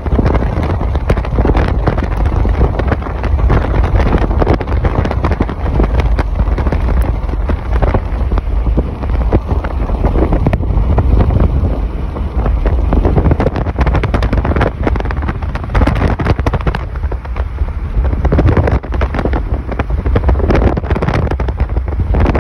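Heavy rain pattering and crackling on a moving car over a strong, deep rumble of road and wind noise.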